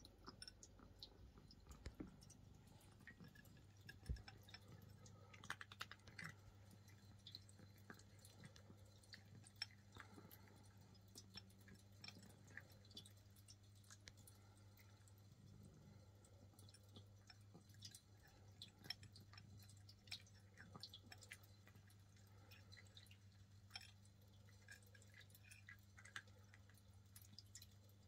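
Cat eating dry kibble: a run of faint, irregular crunches and clicks as it chews, over a low steady hum.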